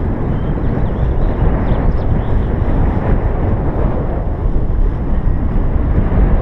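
Steady wind rumble on the microphone of a camera mounted on a paraglider in flight, loud and heaviest in the low end, as air rushes past during the glide.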